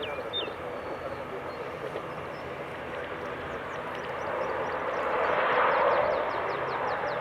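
Aircraft engine noise at an airport, a steady rushing sound that swells louder about five seconds in.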